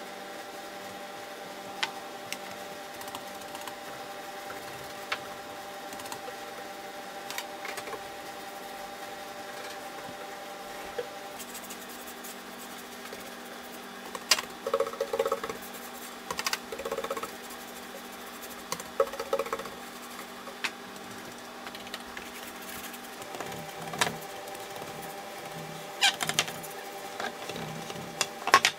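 Scattered light clicks and scratchy taps over a steady hum, with three short squeaks about halfway through and a cluster of clicks near the end.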